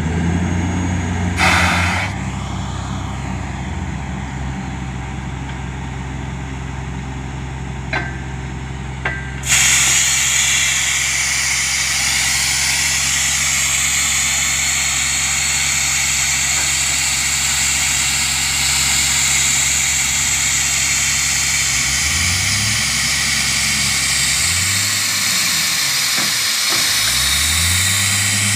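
Diesel engines of a borewell drilling rig and its air compressor running steadily. About a third of the way in, a loud hiss of compressed air blasting dust and spray out of the borehole starts and keeps on. Near the end the engine note rises and falls a few times.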